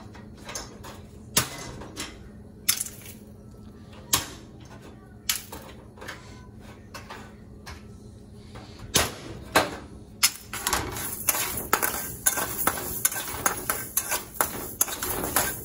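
Metal spatula scraping and clicking against an aluminium kadai as dry rice, cinnamon and cloves are dry-roasted. Sparse clicks at first; about ten seconds in it turns into steady, busy stirring.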